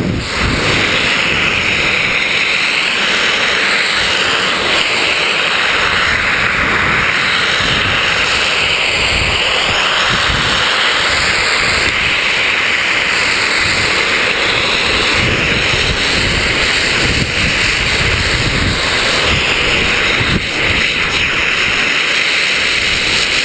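Wind rushing over the microphone and the steady hiss and scrape of skis on snow while skiing down a mogul run, with uneven low gusts throughout.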